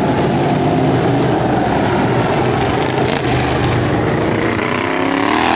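Several racing lawn mower engines running hard at high revs as the mowers lap together. Near the end the engine note rises and grows louder as one mower comes close.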